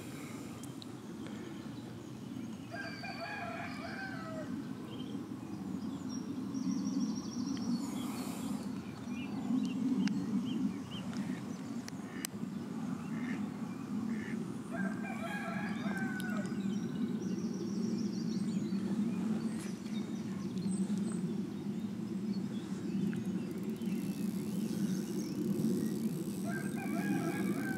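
A rooster crowing three times, about twelve seconds apart, over a steady low background rumble.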